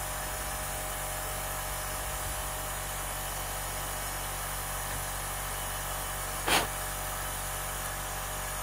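Compressed air hissing steadily as it escapes from the centre cylinder's pipe joints and past its valve on a miniature three-cylinder steam locomotive under an airline leak test, the sign of leaking joints and a poorly sealing valve. A brief sharp knock comes about six and a half seconds in.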